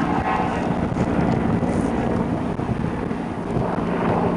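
Steady vehicle engine and road rumble, with wind buffeting the microphone.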